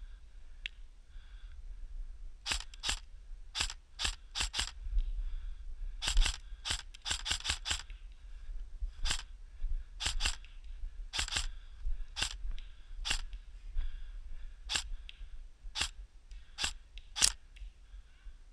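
Airsoft rifle shots: a string of sharp snapping clicks fired singly and in quick runs, irregularly spaced.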